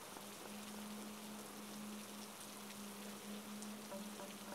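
Faint steady rain-like hiss with scattered small crackles, over a low steady hum.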